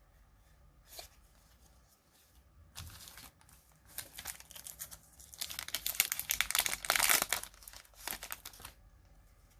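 Foil booster-pack wrapper crinkling and tearing as a trading-card pack is opened, a dense crackle that starts about three seconds in, builds to its loudest in the middle and stops near the end.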